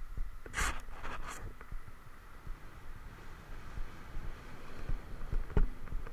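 Skis hissing and scraping across packed snow in two turns about half a second and a second in, over a low rumble of wind on the microphone, with a few sharp knocks near the end.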